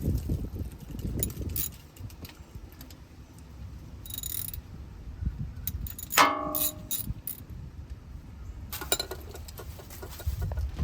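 Scattered small mechanical clicks and rattles, as of tools or parts being handled, with a brief falling squeak about six seconds in.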